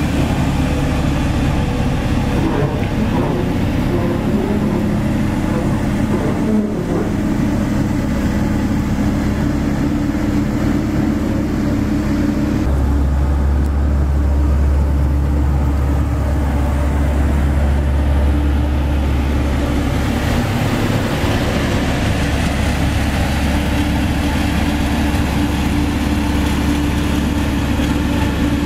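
Heavy diesel engine running steadily as a Hamm 3410 single-drum roller drives down the self-loader truck's ramps onto the ground. About halfway through, the low end of the engine sound abruptly grows stronger.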